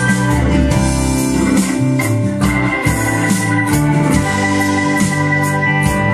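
Instrumental music with sustained organ-like keyboard chords, a moving bass line and steady cymbal hits, played back through a vintage stereo receiver and loudspeakers.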